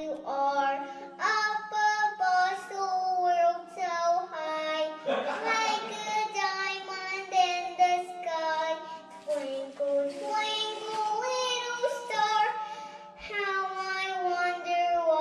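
A young girl singing into a karaoke microphone over a backing track, with a steady low hum underneath.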